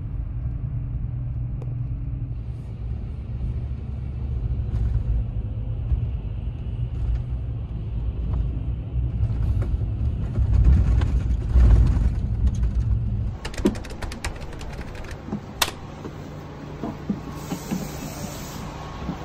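Low rumble of a moving highway coach heard from inside its cabin, engine and road noise together. About two-thirds of the way through the rumble drops away sharply, leaving scattered light clicks and knocks.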